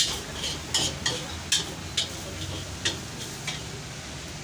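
Metal spatula clanking and scraping against a wok as noodles are stir-fried, about two to three strokes a second, over a faint sizzle; the strokes stop about three and a half seconds in.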